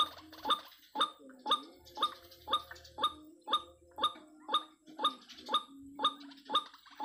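White-breasted waterhen (ruak-ruak) calls: a harsh note repeated very evenly about twice a second.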